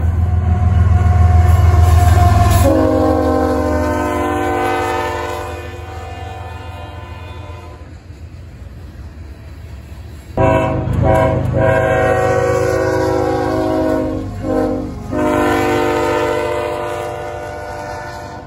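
Freight locomotive air horn blowing a long multi-note chord over the low rumble of the train, dropping in pitch about two and a half seconds in and fading. After a lull, another horn chord starts abruptly about ten seconds in, with two brief breaks near fourteen seconds, and fades near the end.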